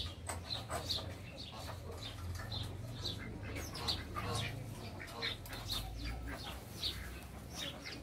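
Aviary birds calling: short, high chirps about two a second, mixed with the clucking of domestic fowl.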